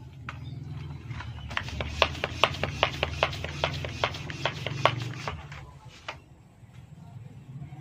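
A fast, even run of sharp clicks, about five a second for roughly four seconds, from the homemade PVC toy gun being worked between shots, over a low steady hum.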